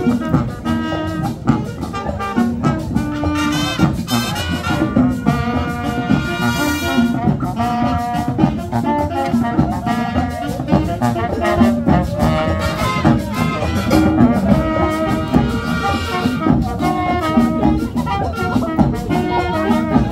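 Marching band playing an upbeat Latin tune: brass (trumpets, trombones and sousaphones) carrying the melody in held and moving notes over a steady drum beat.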